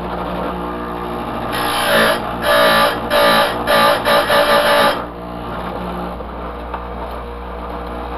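Oregon bench chainsaw-chain grinder: its motor hums steadily while the spinning wheel is brought down onto a cutter tooth in a quick series of short grinding passes, from about one and a half seconds in to about five seconds in, then the wheel lifts away and only the motor hum remains.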